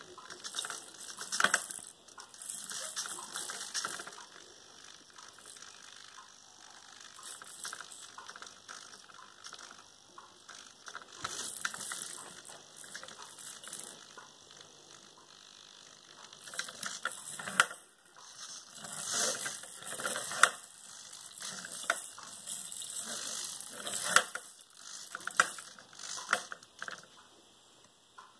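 Hobby servo whirring in short, irregular bursts as it tilts a wooden beam back and forth to keep a ball centred, with a few sharp knocks among them.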